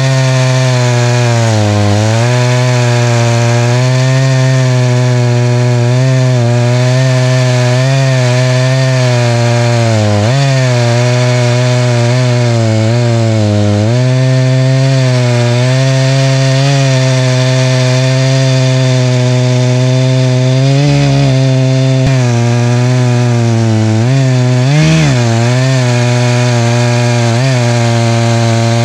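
Echo CS590 Timberwolf two-stroke chainsaw running at high revs under load while ripping a black ash log lengthwise in a chainsaw mill. Its pitch sags briefly several times as the cut loads the engine, and picks up again each time.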